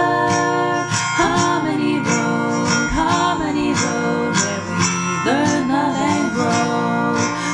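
Upbeat intro music: a strummed acoustic guitar with a melody sung over it.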